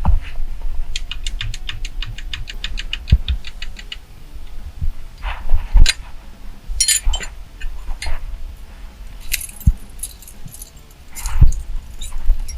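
Metal clinking and knocking as the steering wheel and column hardware are handled and fitted. About a second in there is a run of rapid, even clicks lasting nearly three seconds, then irregular clinks and a few heavier knocks.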